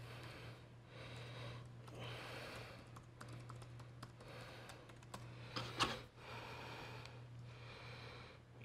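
Faint typing on a computer keyboard, keys tapped in short runs, over a steady low hum. One louder click about six seconds in.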